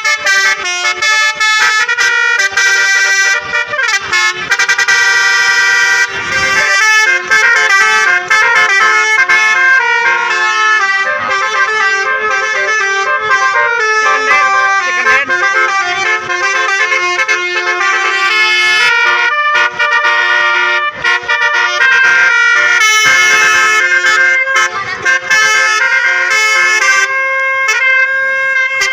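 Basuri telolet bus horns playing melodies, the notes changing in quick steps without a break.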